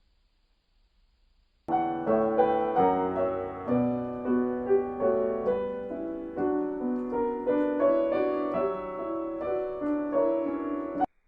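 Piano playing a dense stream of notes and chords, starting suddenly a little under two seconds in and cutting off abruptly near the end.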